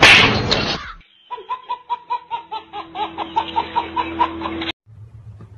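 Baby laughing in a long run of quick, rhythmic giggles that cuts off suddenly about a second before the end. It follows a loud noisy burst in the first second.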